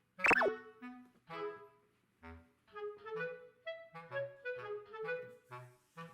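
Light, bouncy background music of short, detached woodwind-like notes over a plucked bass. About a third of a second in, a brief squeak sweeps quickly in pitch; it is the loudest sound.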